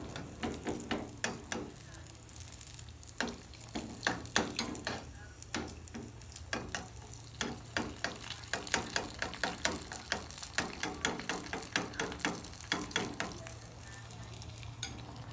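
Kavum frying in hot oil in a small metal wok: the oil sizzles, with many irregular sharp clicks and pops, several a second, that thin out near the end.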